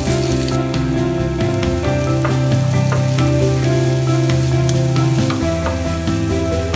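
Chopped shallots sizzling in hot oil in a non-stick frying pan, stirred with a wooden spatula that clicks against the pan.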